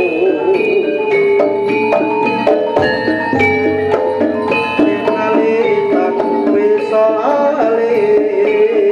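Javanese jaranan ensemble music: hand drums and struck metal percussion (gongs and metallophones) keeping a busy beat under a wavering sustained melody line.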